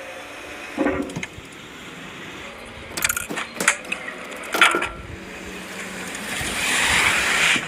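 Workshop noise: a few sharp knocks and clacks, then a hiss that swells over the last couple of seconds and stops abruptly.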